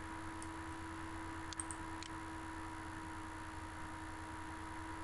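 Steady low electrical hum and hiss of the recording, with a few faint computer mouse clicks about half a second in and again around one and a half to two seconds in.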